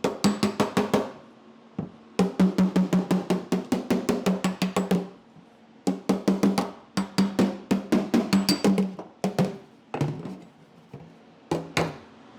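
Sheet-steel body panel of a 1962 Cadillac Series 60 Fleetwood being hammer-planished over welded-up trim holes, bringing the welds and metal level. The strikes come in quick runs of about seven a second, each with a short ring, with brief pauses between runs.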